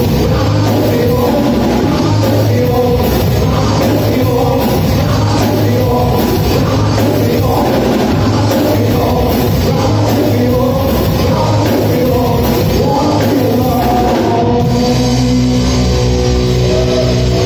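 Live rock band playing: distorted electric guitar, bass guitar and drum kit, loud and steady. About fourteen seconds in, the regular cymbal beat stops and the guitars ring on.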